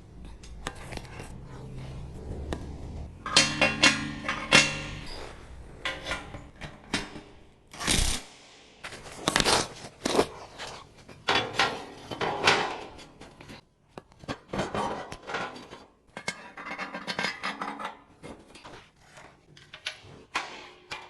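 Steel fabrication parts being handled and set down on a metal table: irregular clanks and knocks, some ringing briefly, with scraping and handling noise between.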